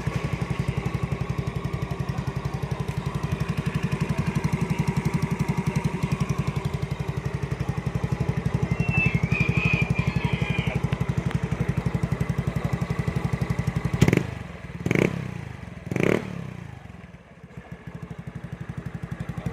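Yamaha Mio Sporty scooter's single-cylinder four-stroke engine breathing through an aftermarket MT8 power pipe exhaust. It idles steadily with an even pulsing note, then about fourteen seconds in it gives a run of short throttle blips, three close together and one more near the end, settling lower between them.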